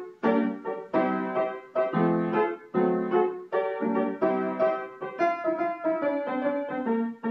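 Piano music: chords struck about twice a second, each ringing out and fading before the next.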